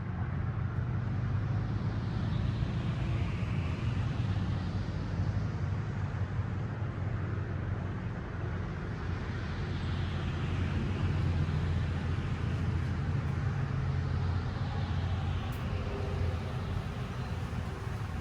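Steady low outdoor rumble with a hiss that swells and fades about every six seconds.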